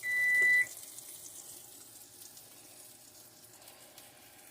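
A single electronic beep from a kitchen appliance, a steady high tone lasting about two-thirds of a second. A faint steady hiss follows it.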